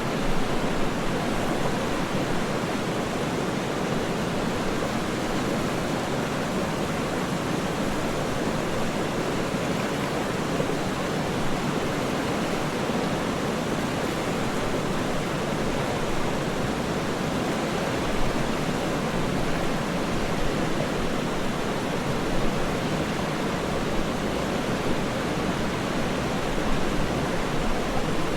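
Waterfall's rushing water, a steady, even roar with no change in level.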